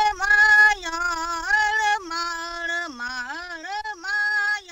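A solo voice singing a slow melody with no accompaniment, holding long notes and gliding between them.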